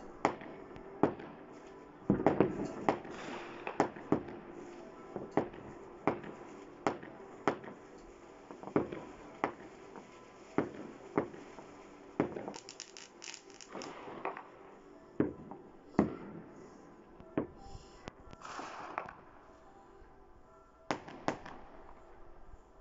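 Fireworks and firecrackers going off: sharp, irregular bangs about once a second, with a few stretches of crackling. They thin out in the last few seconds, with two last bangs near the end.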